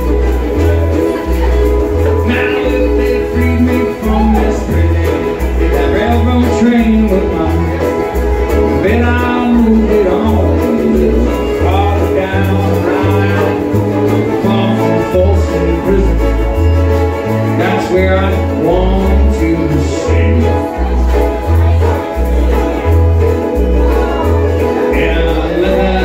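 Live band playing an upbeat song: strummed strings and a fiddle over a steady, pulsing bass line, with a voice singing over them.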